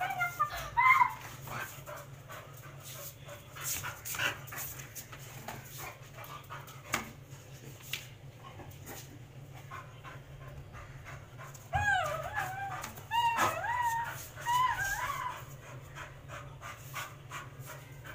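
Labrador retriever whining and yipping in short, high, bending cries during rough play: a few in the first second, then a run of them from about twelve seconds in for three or four seconds. A few sharp clicks fall in the quieter stretch between.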